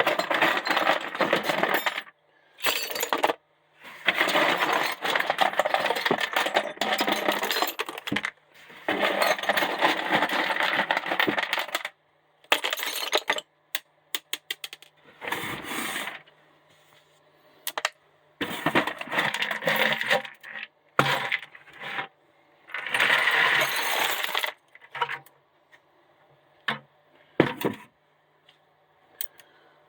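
Scrap steel parts from stripped cordless tools, including motor armatures and drill heads, clattering and clinking as they are dropped and piled. The clatter comes in repeated bursts of a second or more, with short pauses between.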